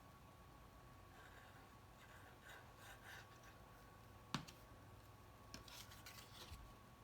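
Faint rustling and rubbing of folded cardstock being handled and pressed into place, with one sharp tap about four seconds in.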